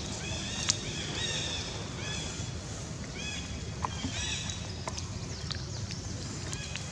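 Outdoor ambience: a steady low rumble of wind on the microphone, with short, high chirping calls repeating every second or so and two sharp clicks, one under a second in and one near the middle.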